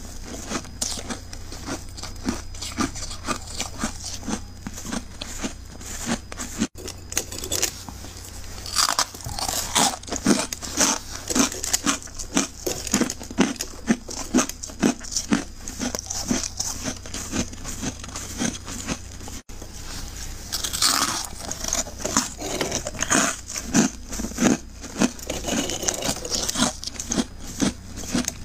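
Crisp, dry crunching of freezer frost being bitten and chewed, a quick run of crunches several times a second, with a few louder, rougher bites about nine and twenty-one seconds in.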